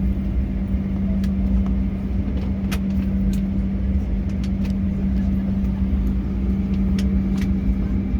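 Cabin noise of a Boeing 737-800 taxiing after landing: a steady drone with a constant low hum and rumble from the jet engines and cabin air, with a few scattered light clicks.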